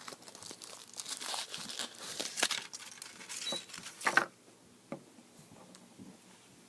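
Surprise egg's wrapper crinkling and tearing as it is unwrapped by hand, stopping about four seconds in, followed by a few faint ticks.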